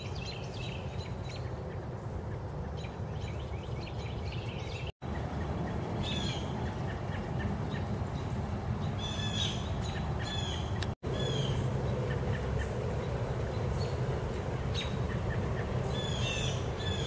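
Birds chirping and calling over a steady low rushing noise, with two brief dropouts about five and eleven seconds in.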